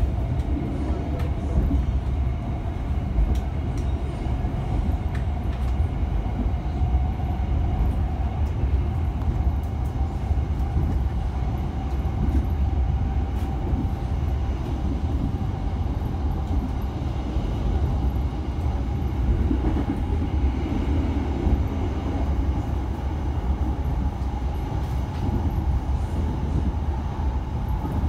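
Passenger train running between stations, heard from aboard: a steady rumble of wheels on the track with a faint hum over it.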